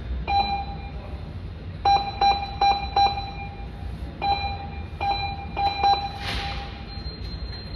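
A series of short, identical electronic beeps at irregular intervals, about nine in all, as buttons are pressed on a drive-up ATM keypad. A steady low rumble runs underneath.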